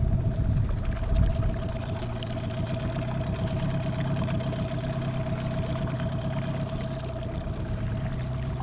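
Yamaha 9.9 outboard motor running steadily at slow trolling speed, with a constant whine over its low drone, and water washing along the boat's hull.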